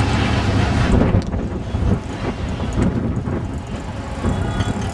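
Road traffic on a busy city street heard from above: a steady din of engines and tyres with a low rumble.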